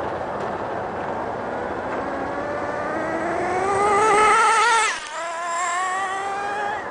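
Nitro engine of an HPI MT2 RC monster truck running at high revs, its wavering whine rising in pitch and loudness as it speeds toward the camera. Just before five seconds in the pitch drops suddenly as it passes close by, then the engine note climbs again as it accelerates away.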